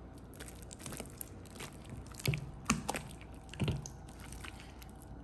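Large batch of clear glitter slime being squeezed and pulled up by hand: wet squelching with sticky clicks and pops, and a few louder squelches between about two and four seconds in.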